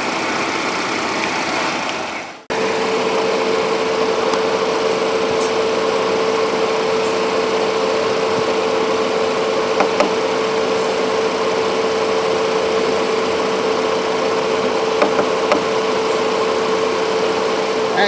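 2016 Cadillac SRX's V6 engine idling with the air conditioning on full and the electric condenser fan running, while the AC system is topped up with R134a refrigerant because it is running low. The sound cuts out briefly about two and a half seconds in, then comes back with a steady hum added.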